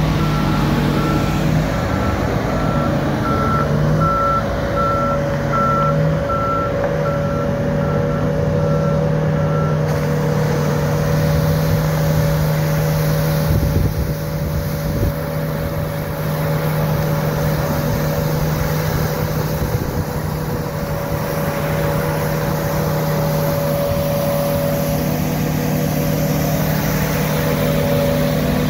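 Bucher CityCat 5000 street sweeper working, its diesel engine and sweeping gear running steadily with a low hum. For the first ten seconds or so its reversing alarm beeps about once a second, then stops while the machine keeps running.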